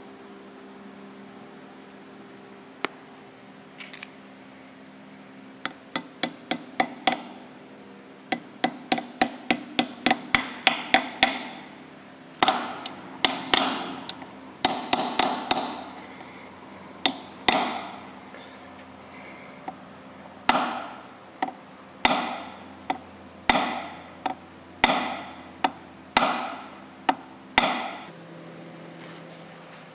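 Hammer tapping a reused expansion plug into the bearing bore of an Ammco 4000 brake lathe's housing to seat it. Quick runs of light taps come first, then louder strikes, then single blows about a second apart near the end.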